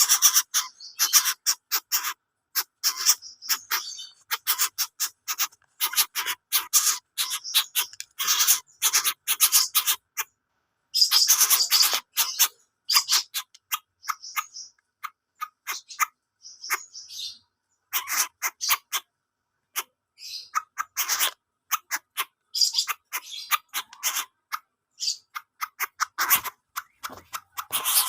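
Coucal giving strange, harsh calls: rapid rasping clicks in bouts of one to two seconds, with short pauses between.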